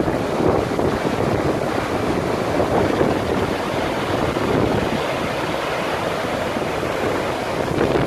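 Kapuzbaşı waterfall crashing into its plunge pool: a steady rush of falling water.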